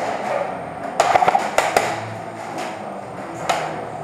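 Airsoft gunfire in a concrete building: a quick string of sharp clacks about a second in and a single clack near the end, from shots fired and BBs striking nearby surfaces.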